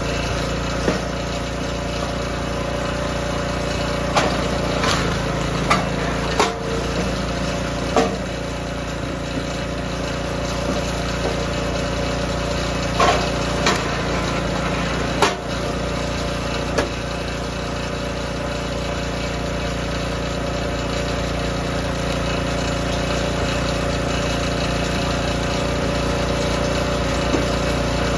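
DR K28 Pro log splitter's small gas engine running steadily, with sharp cracks and clunks as the ram drives hardwood against the wedge and it splits, about ten of them in the first 17 seconds; after that only the engine is heard.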